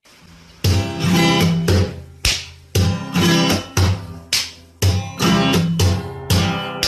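Background music: a strummed guitar playing chords in a steady rhythm, starting about half a second in.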